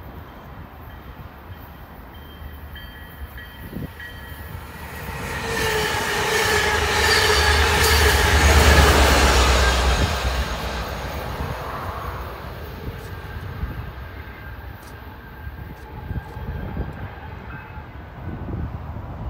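Northstar commuter train passing at speed, its MP36PH-3C diesel locomotive and bilevel coaches building to a loud rumble and rush about eight to nine seconds in, then fading as the train moves away. A few steady whining tones ride over the noise as it approaches and passes, dipping slightly in pitch.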